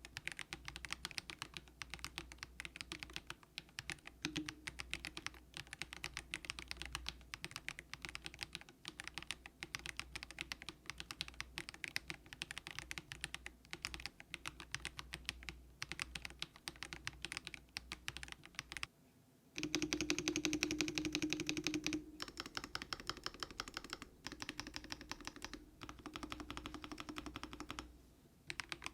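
Monstargear NINJA87 mechanical keyboard with light Haimu Sea Salt switches being typed on quickly, a fast stream of key clacks. The typing stops briefly about two-thirds of the way in, comes back louder and denser for a couple of seconds, then pauses again shortly before the end.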